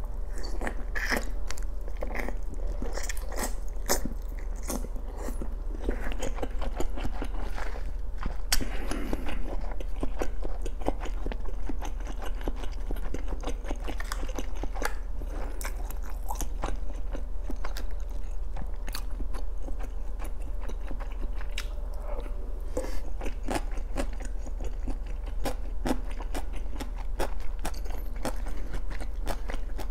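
Close-up mouth sounds of a person biting into and chewing soft Korean fish cake (eomuk), picked up by a clip-on microphone. It is a steady run of short, close, sticky clicks and chews.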